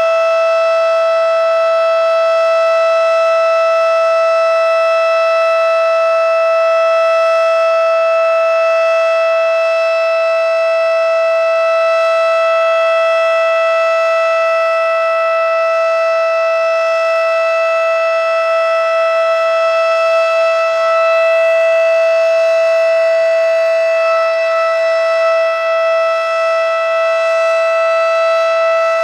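Federal Signal Model 5 electromechanical warning siren sounding a single steady tone with strong overtones, its pitch holding level rather than wailing, during a scheduled siren test.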